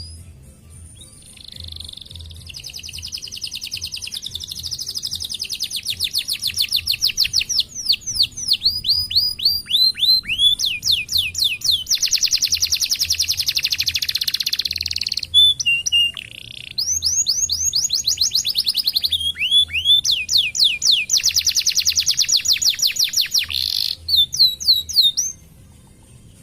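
Domestic canary singing: long rolls of rapidly repeated high notes and trills alternating with series of quick falling sweeps, with a short break about two-thirds of the way through. The song stops about a second before the end.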